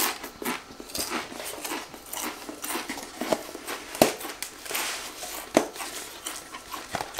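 Crunching of a Pringles crisp being chewed, with the clicks and taps of the Pringles cardboard tube being handled, and two sharper knocks about four and five and a half seconds in.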